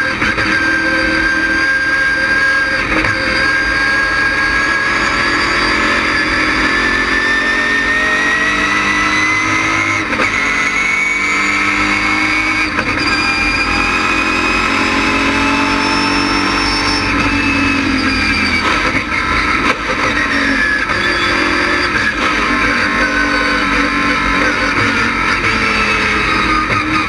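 ASA stock car's LS6 V8 engine running hard on track, its pitch rising slowly over a long pull, dropping once about two-thirds of the way through, then climbing again near the end.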